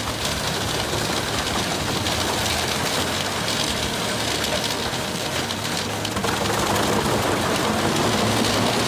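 Wood chipper running, its engine drone mixed with a steady rushing noise of wood being shredded; it gets louder about six seconds in.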